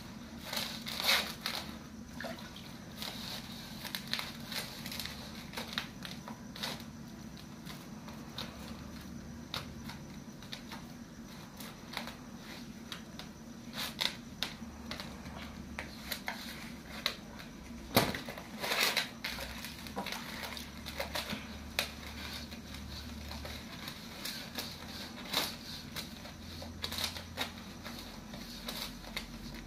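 Hands kneading wheat-flour dough in a steel bowl: irregular squishing and scrunching, with occasional sharper knocks, the loudest about 18 seconds in.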